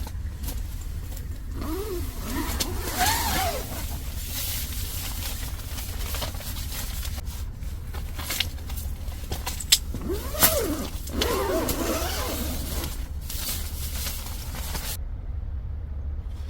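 A steady low rumble like a running vehicle, with scattered clicks and two short spells of rising-and-falling tones, a couple of seconds in and again about ten seconds in.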